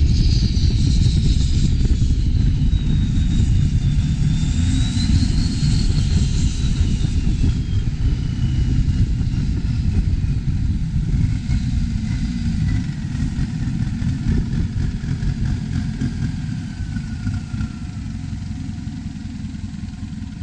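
Turbocharged diesel engine of a modified Thai long-tail racing boat running under way, with a high turbo whistle that rises briefly about five seconds in and then slowly falls. The engine eases off and grows quieter over the last few seconds.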